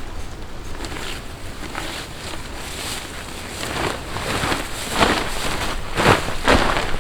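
Wind blowing in gusts, with a few louder surges in the last few seconds.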